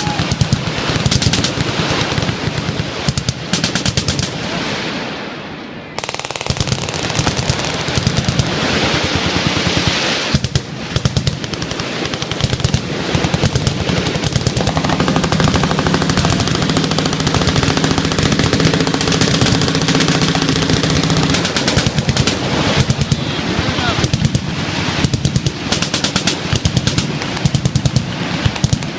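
Many machine guns firing full-auto at once, with bursts overlapping into a continuous rattle that eases off briefly about six seconds in. A steady low drone sits under the gunfire for several seconds mid-way.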